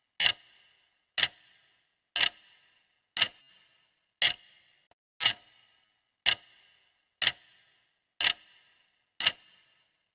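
Clock ticking steadily, one sharp tick each second, each with a short ringing tail.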